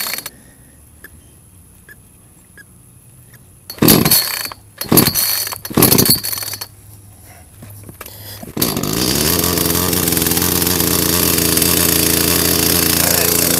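Echo CS-310 chainsaw's small two-stroke engine being cold-started on choke: three quick rips of the recoil starter cord about a second apart, then a couple of seconds later the engine catches and runs steadily.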